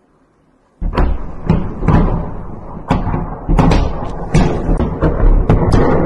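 Barrage of 122 mm Grad rocket explosions: about a dozen sharp blasts in quick succession, some bunched close together, over a continuous low rumble, starting about a second in.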